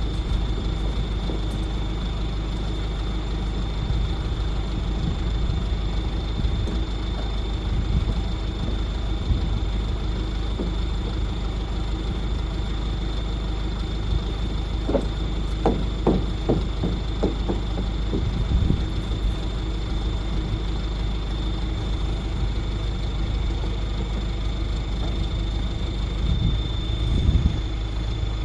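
Steady low rumble of a vehicle on the move, heard from inside the cab, with a constant faint high whine and a short run of knocks and rattles about halfway through.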